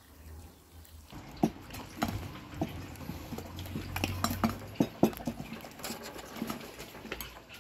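Wooden spoon scraping and knocking against a large metal pan as chunks of cooked meat and bread are pushed out onto a glass serving dish. Irregular clinks and taps start about a second in.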